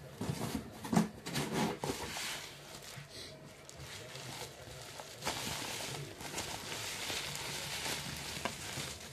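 Newspaper and paper packing rustling and crinkling as it is handled and pulled out of a parcel box, with a few knocks of handling in the first two seconds and steadier rustling in the second half.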